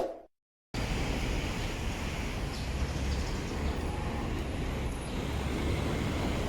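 City street ambience: steady traffic noise with a low rumble, cutting in abruptly just under a second in, after a single short thump and a moment of silence.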